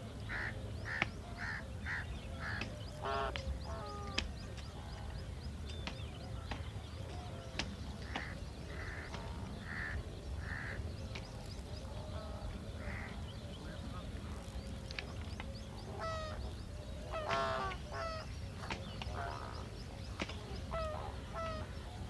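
Greater flamingos calling in goose-like honks: a quick run of about five near the start, then more scattered through. Higher chirping calls of other birds mix in, over a steady low rumble.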